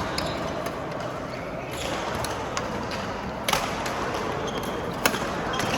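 Badminton rackets striking a shuttlecock in a rally: sharp cracks, the two loudest about a second and a half apart, over steady hall noise.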